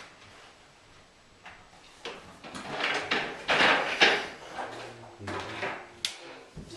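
Rummaging and handling noises: objects shuffled and knocked about, with rustling swishes in the middle and a few sharp clicks.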